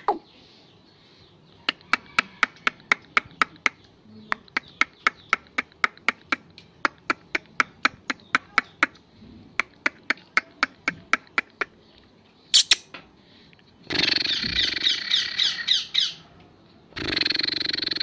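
Caged black francolin giving a long series of sharp clicking calls, about three a second. After one louder call near the two-thirds mark, it breaks into two bursts of harsh rasping squawks. The calls are the bird's agitated, angry notes.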